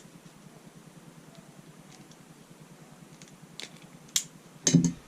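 Faint sharp clicks of small hand tools and wire being handled, with a louder short clunk near the end.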